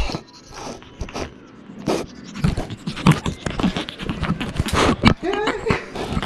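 Pug puppy sniffing and licking right against the camera's microphone: an irregular run of wet clicks, snuffles and scrapes.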